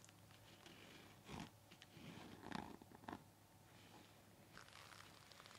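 Faint, close-miked scratching and rubbing on a KN95 face mask, with a few soft brushes or taps about one and a half, two and a half and three seconds in.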